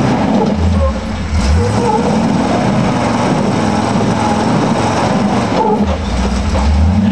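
A modified flat-fender Jeep's engine revs and eases off under load as the Jeep crawls over the concrete-slab obstacle. The revs climb about half a second in and again near the end.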